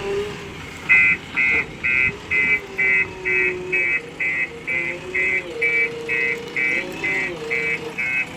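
Reversing alarm beeping about twice a second, starting about a second in, over a diesel engine whose pitch rises and falls as the machine works.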